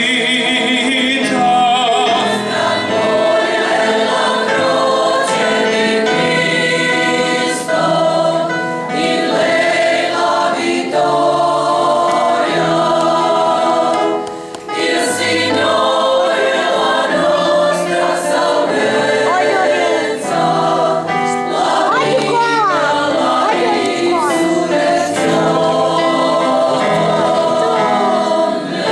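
Mixed choir singing a sacred hymn in sustained, overlapping parts, with piano accompaniment. The singing briefly drops away about halfway through and then resumes.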